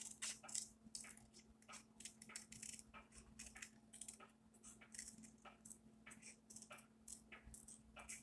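Faint, quick snips of scissors cutting a small oval out of white paper, about two or three snips a second in an uneven run.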